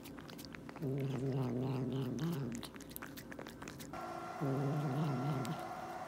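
A cat making low growling grumbles while eating a treat: two drawn-out growls, each one to two seconds long, with faint clicks of eating between them.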